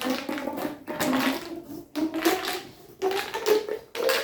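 Plastic pop tube being stretched and squashed, its ribbed sections clicking and zipping in about four strokes of a second each.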